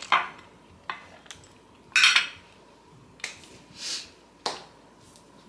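Fork and knife clinking and scraping against a plate in about half a dozen short strokes, the loudest about two seconds in.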